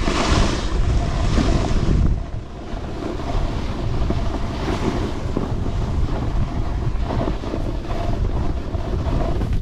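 Wind rushing and buffeting over the microphone during a ski descent, with the hiss of skis sliding on snow; the rush eases a little about two seconds in.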